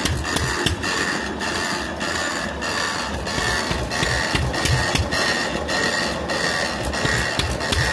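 Merit hot-tube stationary engine running at a slow, even beat of about two strokes a second, with sharp mechanical ticks over a low thudding pulse. Under it runs the steady hiss of the torch flame heating the hot-tube ignitor.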